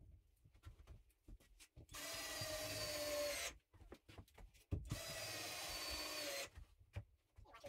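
Power drill driving screws into wooden wall boards in two runs of about a second and a half each. The motor's pitch climbs slightly during each run before stopping abruptly, with a few clicks and knocks between the runs.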